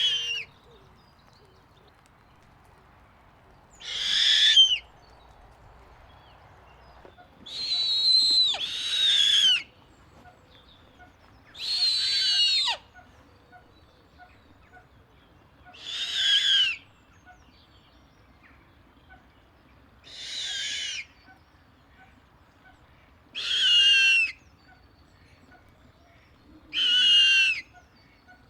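Snowy owl giving a series of harsh, high-pitched screeching calls, each about a second long and repeated roughly every four seconds, with two calls close together near the start.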